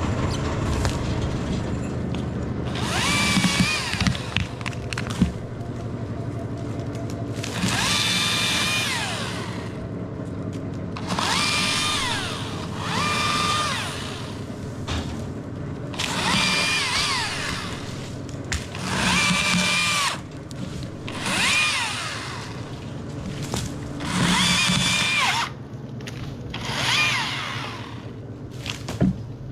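Electric chainsaw run in about nine short bursts of a second or two each. Its motor whine rises as it spins up and falls away as each burst ends, over a steady low hum.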